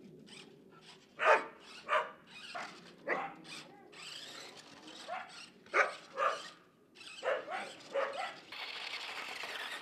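Australian Shepherd barking over and over in short barks at uneven intervals, about a dozen in all. A steady high whirring noise comes in near the end.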